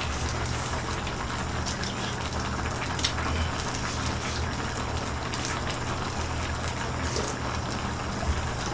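Pork-bone and aged-kimchi stew bubbling at a boil in a wide pot on a portable gas burner: a steady crackling, watery hiss, with a few sharper clicks now and then.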